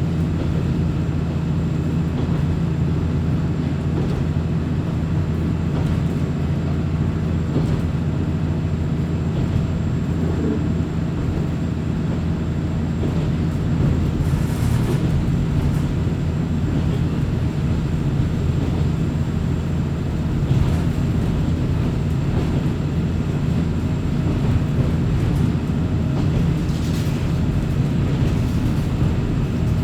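Inside a Kominato Railway diesel railcar under way: a steady low drone of the diesel engine and wheels on the rails. Brief higher-pitched rail noises come through a few times, about a third of the way in and again later.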